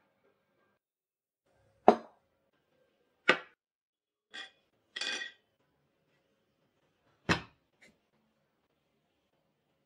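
Kitchen dishes and utensils being handled: three sharp knocks spread a few seconds apart, with a short clink and a brief noisy swish between them.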